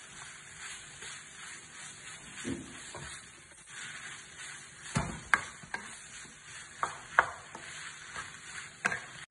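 Wooden spoon stirring a fish pastilla filling in a metal frying pan over a gas flame, the food sizzling softly. Several sharp taps of the spoon against the pan come in the second half.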